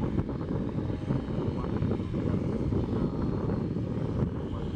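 Airbus A340-300 jet engines running as the airliner taxis and turns on the ground. The sound is a steady low rumble.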